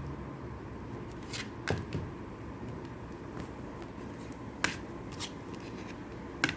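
Several light, separate clicks and taps of small metal construction-kit parts (strips, nuts and bolts) being handled and fitted together, over a steady low background hum.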